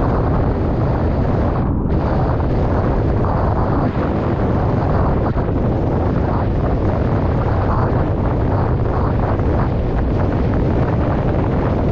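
Steady, loud wind buffeting on the camera's microphone as a wing foiler moves across open water at about 11 mph, a constant low rumble.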